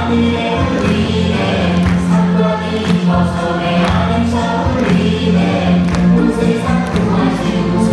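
A church choir singing together with instrumental accompaniment and a steady bass line underneath.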